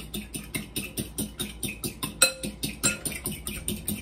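Eggs, milk and seasoning being whisked by hand in a glass mixing bowl: quick, even strokes about seven a second, the utensil clicking against the glass. A few louder, ringing clinks come a little past halfway.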